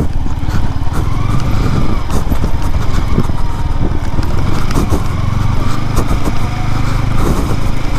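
Yamaha R15's single-cylinder engine running as the motorcycle is ridden over a rough, rocky track, a steady low rumble with scattered knocks from the bumpy ground.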